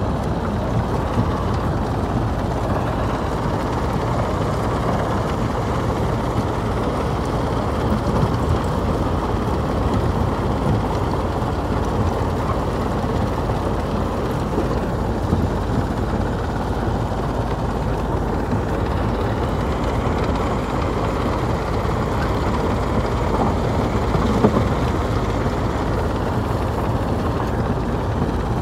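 Stone crusher running and crushing rock: a loud, steady heavy mechanical din with a few sharper knocks, the largest about 24 seconds in.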